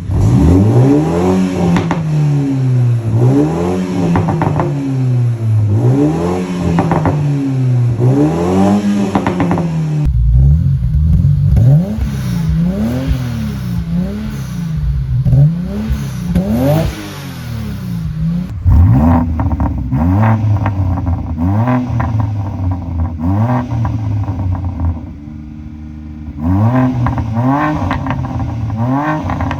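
BMW engines with aftermarket sport exhausts being revved over and over, each rev rising and falling in pitch about every two seconds. The sound changes abruptly about a third and about two thirds of the way in, as one car's exhaust note gives way to another's, and dips briefly near the end before the revving resumes.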